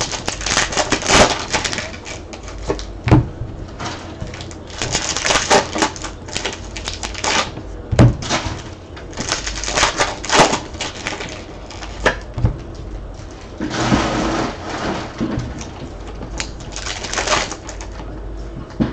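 Trading-card pack wrappers crinkling and tearing as packs are opened and cards handled. There are several crinkling bursts of about a second each, with sharp clicks in between.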